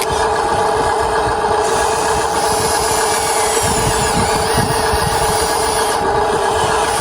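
Radio-controlled model excavator's small electric motors and gearing running, a steady whir with a faint high whine that shifts in pitch.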